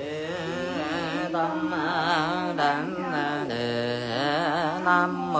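Vietnamese Buddhist liturgical chant: one voice sung in a long, slow, drawn-out melody with a strong wavering vibrato and no clear spoken words.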